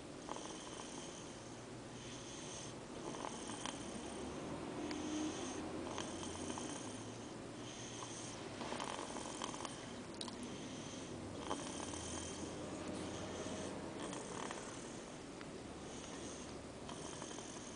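A little snore, soft and regular, repeating with each breath about every one to two seconds.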